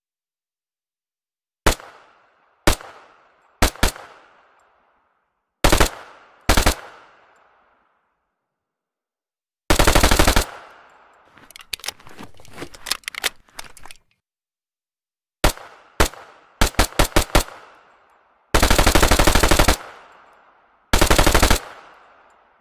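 Heckler & Koch MP5A3 9 mm submachine gun firing: single shots and pairs at first, then rapid full-auto bursts, each followed by an echo tail. A run of quieter shots comes in the middle.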